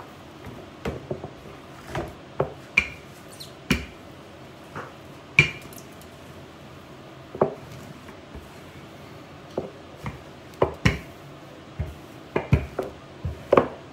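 Wooden rolling pin knocking and clacking on a kitchen countertop while pizza dough is rolled out and handled: irregular sharp knocks, a few with a brief ring.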